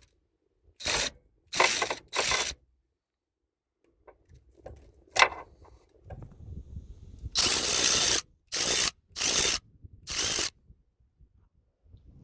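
Socket ratchet wrench clicking in short bursts as bolts are loosened, undoing the hose fittings and mounting bolts of a seized AC compressor. Three quick bursts, a single sharp knock, then a longer burst and three more short ones.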